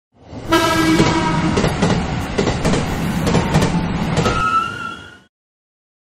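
Train sound effect for a passing train. A short horn blast comes about half a second in, then wheels clatter over the rails with a rumble and a thin high squeal near the end. It fades in and out as the train goes by.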